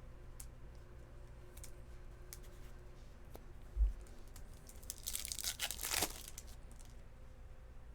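A baseball card pack wrapper being torn open: a noisy rip lasting about a second, a little past the middle. A soft low thump comes shortly before it, with light clicks of card handling throughout.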